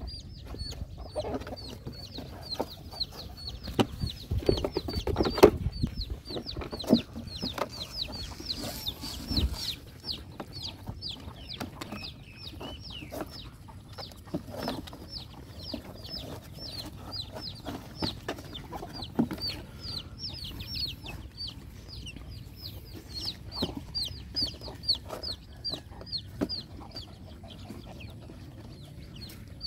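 Puppies eating out of a plastic bucket, with knocks and clicks against the bucket, loudest a few seconds in. Under it runs a steady high peeping, several short falling peeps a second.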